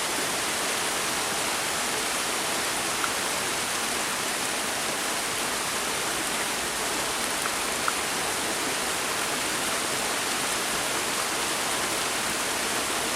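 Steady rain falling, an even hiss that does not change, with a couple of faint short ticks standing out.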